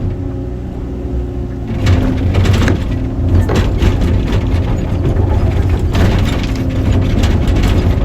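Excavator engine running steadily under load, with wood cracking and crunching from about two seconds in as a tree stump is broken apart.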